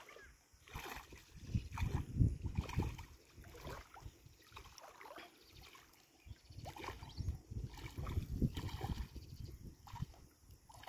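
Water splashing and sloshing in irregular bursts, with two longer spells of splashing.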